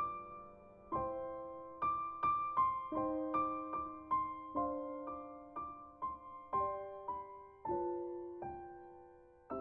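Background music: a slow, gentle piano melody, each note struck and then fading.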